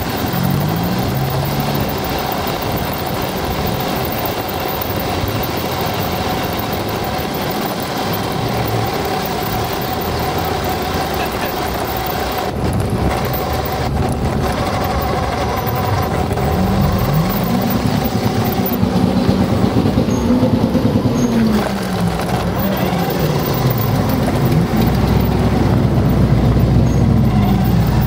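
Car engines on a gravel lot of modified cars: a steady mix of engine noise throughout, with one engine's pitch rising and then falling twice in the second half as a car revs and moves off.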